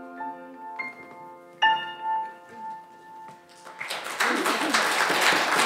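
The closing notes of the anthem's instrumental accompaniment are struck and ring out, fading away. About four seconds in, applause breaks out.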